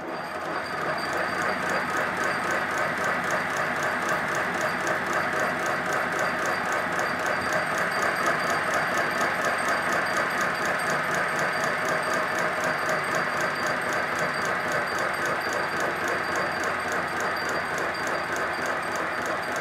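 5-inch gauge live-steam model locomotive running on compressed steam with its wheels turning freely: a quick, even chuffing from the cylinders over a steady hiss of steam. It builds up about a second in as the regulator is opened, then holds steady. It is running on the steam left in its boiler, with no fire in the firebox.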